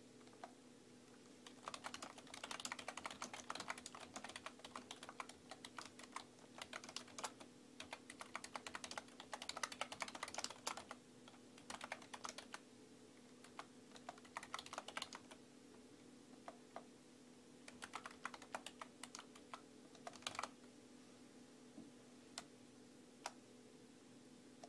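Computer keyboard keys clicking in quick runs of typing, densest in the first half, with a gap of about two seconds after the middle and only a few single taps near the end. A faint steady hum lies underneath.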